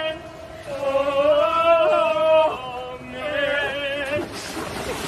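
Music: a singing voice holding long notes, chant-like, with one wavering note in the last part, and a rushing noise rising near the end.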